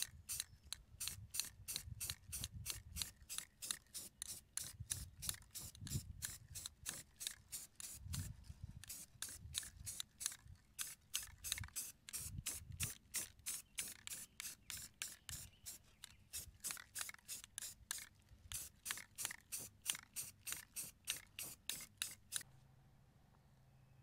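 A hand tool worked back and forth in rapid, even strokes, about three a second. It sounds like filing or hand-sawing. The strokes stop near the end, leaving a faint low hum.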